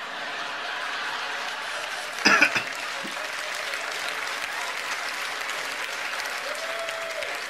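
Theatre audience applauding, a steady dense clapping, with a short loud burst of voice about two seconds in.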